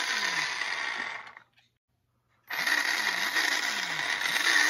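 Brushless motor of a Traxxas Stampede 4x4 VXL running in repeated spurts, each spinning down in a falling whir over a steady high whine, breaking off for about a second midway. It is the motor's stutter (cogging) caused by a loose bullet connector on one of the ESC-to-motor wires.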